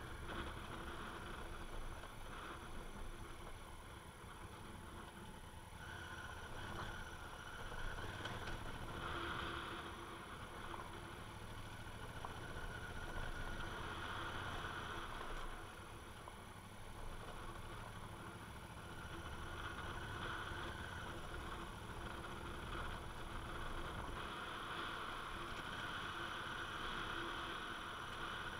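Honda Africa Twin's parallel-twin engine running as the motorcycle rides slowly over a rough gravel track, heard through steady wind and road noise on the bike-mounted camera.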